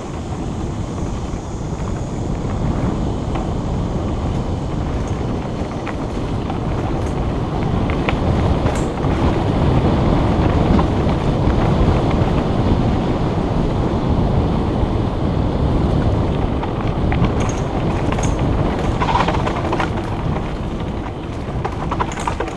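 Wind buffeting the camera microphone over the rumble of a mountain bike rolling fast along a dirt singletrack trail, with occasional clicks and rattles from the bike. It gets louder in the middle.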